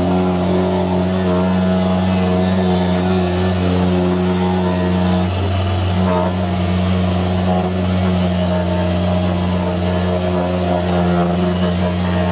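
Angle grinder motor running steadily, spinning a sanding drum in a homemade spindle-sanding table while a wooden block's edge is pressed against the drum and sanded. A steady motor hum with sanding noise over it; the tone breaks briefly about five seconds in.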